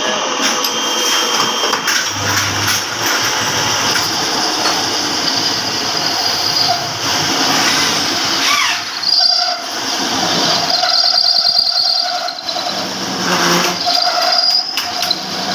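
A power tool working metal, running steadily with a high whine and shrill metal-on-metal squeals that come and go.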